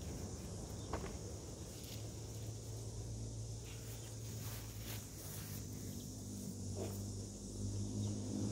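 Summer orchard ambience: a steady high chirring of insects in the grass, with a few light knocks and rustles as plums are picked from the branches. A low engine hum builds toward the end.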